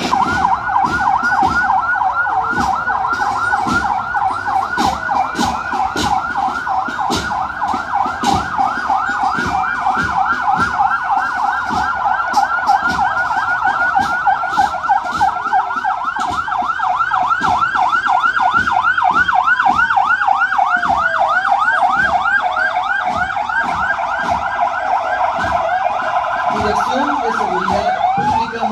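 Emergency vehicle sirens in a fast, repeating yelp, with a second siren sweeping slowly down in the middle and a rising wail starting near the end.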